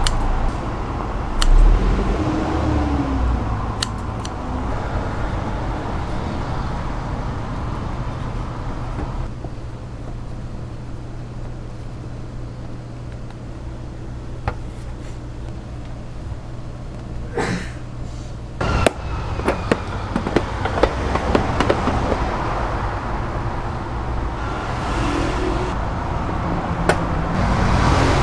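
Road traffic rumbling steadily in the background. About two-thirds of the way in come a cluster of sharp clicks and knocks.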